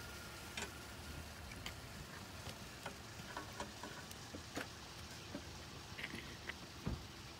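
Faint steady hiss with light, irregular clicks and ticks, about one or two a second, and a low thump near the end.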